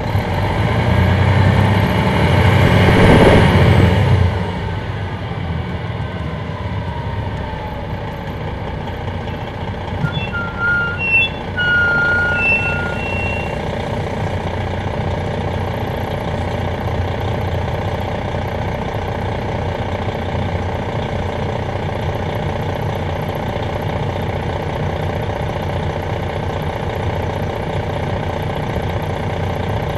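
Detroit Diesel Series 60 engine of a 2001 MCI D4000 coach heard from the rear seats: it runs louder for the first few seconds, then settles to a steady idle. A few short beeps sound around ten to thirteen seconds in.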